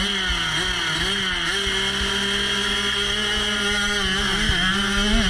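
Motocross bike engine running at steady, fairly high revs with small rises and dips in pitch, heard from a camera mounted on the bike.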